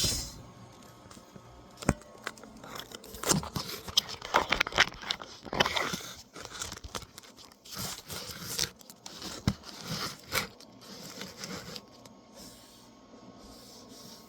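Handling noise from the recording phone or camera being picked up, moved and set in place: irregular knocks, clicks and rustling scrapes.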